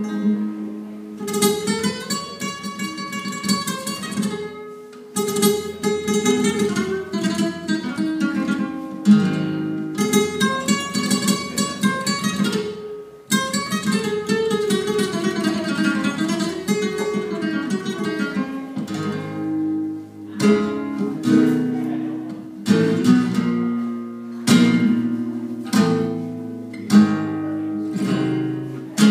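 Solo flamenco guitar played live: rapid runs of plucked notes, turning in the second half to sharp strummed chords repeated with short pauses between them.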